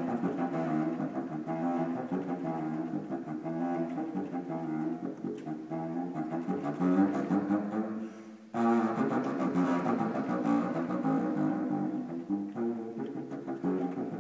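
Solo contrabassoon playing a fast line of low notes, unaccompanied, with a short pause about eight seconds in before the playing resumes.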